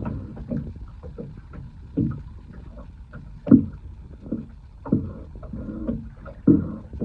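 Small waves slapping and knocking against the hull of a small fishing boat, in irregular knocks about every second or so, the loudest about three and a half seconds in.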